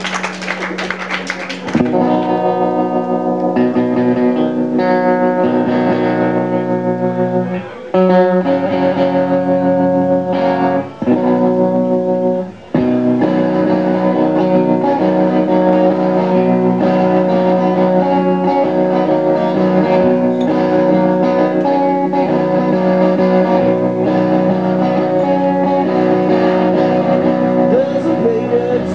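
Live rock band's distorted electric guitar playing a riff through a club PA. It starts after about two seconds of noise, breaks off briefly about three times in the first half, then runs on steadily.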